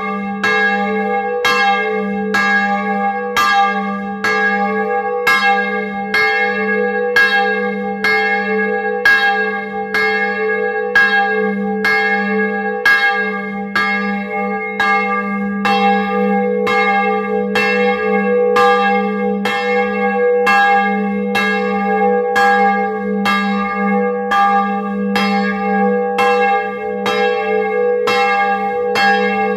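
A swinging 17th-century bronze church bell, tuned to G-sharp, ringing in full swing: its clapper strikes in a steady, even rhythm, and each strike rings on into the next, so the deep hum of the bell never drops out.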